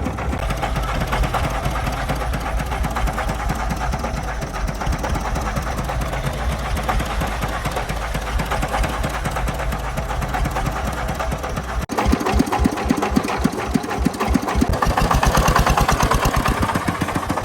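Diesel engines of a công nông truck and a mini excavator working: a steady diesel drone with a strong low hum, then about twelve seconds in a sudden change to an engine running with a rapid, even beat.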